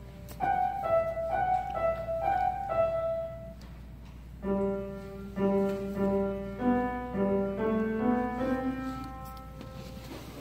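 Grand piano playing a simple beginner's recital piece: short phrases of single notes with some held lower notes, and a pause of about a second partway through.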